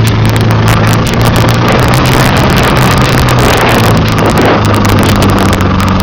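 Lada Niva engine running hard at steady high revs while climbing through mud, with wind buffeting the microphone; the engine note steps up slightly about four seconds in.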